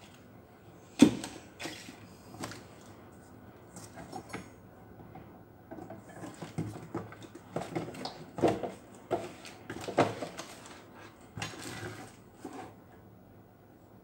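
Cardboard product boxes being handled and pulled open by hand: irregular rustles, scrapes and knocks, the sharpest knock about a second in and a busier run of them in the second half.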